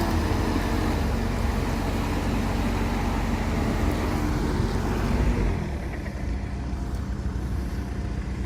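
A motor vehicle's engine running steadily with a low hum and slight changes in pitch, then quieter about five and a half seconds in.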